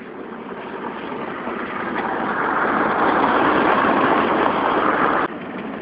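Truck driving on a dirt road, heard from inside the cab: a steady rush of road and wind noise that grows louder, then drops off suddenly near the end.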